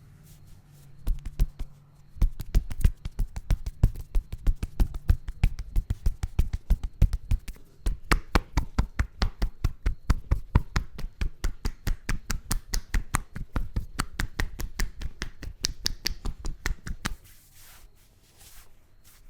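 Rapid, rhythmic hand strikes of an Indian head massage, the masseuse's hands tapping and slapping on head and shoulders about five times a second. It starts about a second in and stops abruptly near the end.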